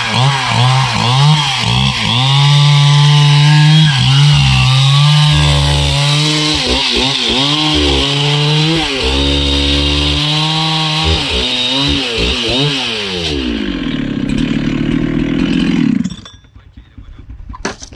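Chainsaw cutting through a log, the engine pitch dipping and recovering as the chain bites, over a steady hiss from the cutting. Near the end the engine winds down to a steady idle, then stops.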